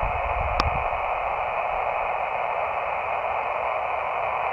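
Elecraft KX2 transceiver receiving steady hiss of band noise on 20-metre single sideband, the noise cut off above and below by the receiver's narrow voice passband. A single short click sounds about half a second in.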